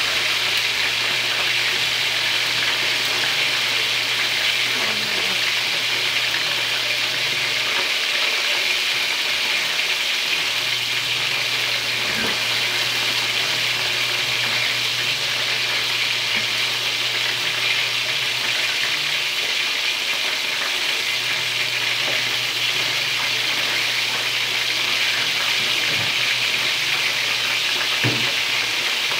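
Chicken drumsticks frying in a shallow pan: a steady sizzling hiss of hot fat, with a few faint pops and ticks near the end.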